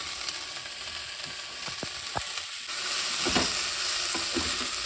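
Potatoes and cabbage sizzling in a hot pan while being stirred, with a few short scrapes and knocks of the spatula against the pan. The sizzle grows louder a little past halfway.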